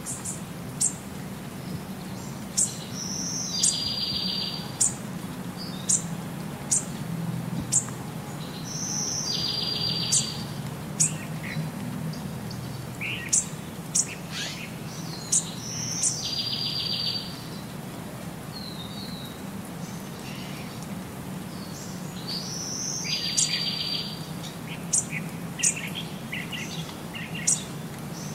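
Small birds chirping: sharp high chirps and short twittering phrases, the same sequence coming round again about every six to seven seconds, over a low steady hum.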